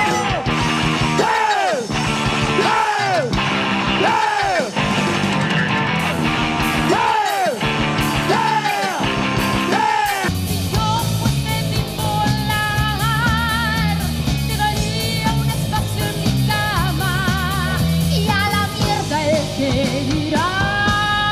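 A rock band playing. For about the first ten seconds there is a run of repeated falling cries, then a steady bass and drum groove under held, wavering high notes.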